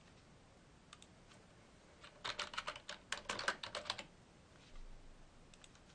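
Faint computer keyboard typing: a quick run of keystrokes lasting about two seconds, with a few single clicks before and after it.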